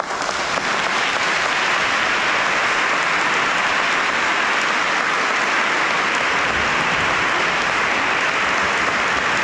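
Audience applauding steadily, a dense clapping that sets in all at once as the music ends.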